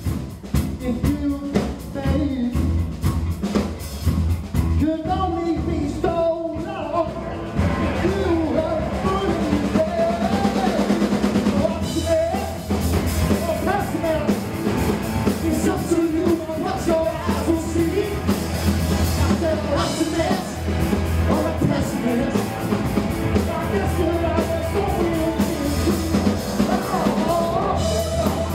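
Live rock band playing: a singer over distorted electric guitars and a drum kit. The band gets fuller about seven seconds in.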